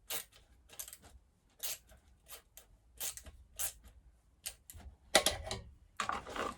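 Irregular light clicks and clunks of the Partner P7000 chainsaw's handlebar and anti-vibration mount being handled, with louder knocks about five seconds in.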